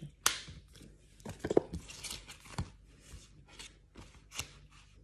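Printed paper and card being handled: crisp rustles, flicks and scattered short clicks, with a sharper click about a third of a second in and a louder cluster around one and a half seconds in.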